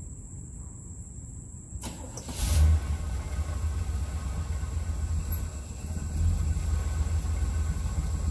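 Pickup truck engine, plausibly the 1981 Chevrolet C10 Silverado's, starting about two seconds in. A click, then a brief loud swell as it catches, then a steady idle.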